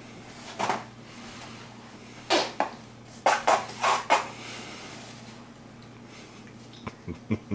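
A woman's short gagging coughs and spitting into a paper towel, muffled by the towel held at her mouth: one about half a second in, then a quick cluster of four or five between about two and four seconds in, with a few faint clicks near the end. She is reacting to the fishy taste of a squid-flavoured snack.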